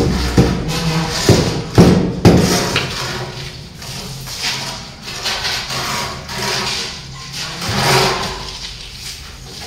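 Steel trowel on a ceramic floor tile: several sharp knocks in the first couple of seconds, then repeated scraping as cement paste is spread over the back of the tile.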